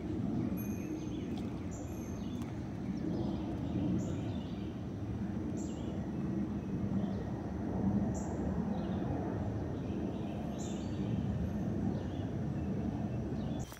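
A steady low outdoor rumble, with a bird giving a short high call about every one to two seconds.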